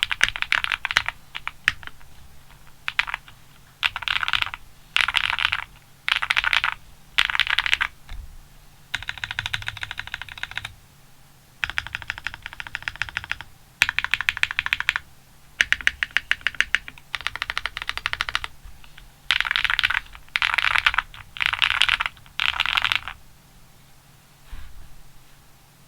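Link65 custom mechanical keyboard with an FR4 plate, GMK keycaps and 靜謐 switches, typed on in quick bursts of keystrokes separated by short pauses. The typing trails off near the end.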